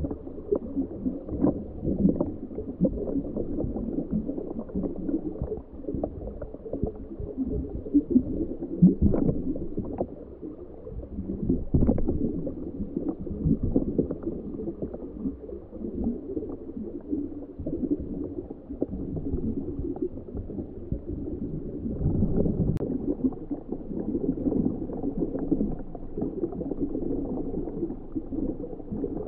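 Muffled churning and gurgling of water, with scattered light clicks and knocks, picked up underwater by a camera sealed inside a homebuilt ROV while its thrusters run.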